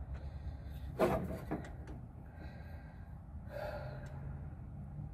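A man's sharp, strained breath about a second in and a softer one past halfway, the effort of working a blind bolt in by feel, with a few faint clicks and a low steady hum beneath.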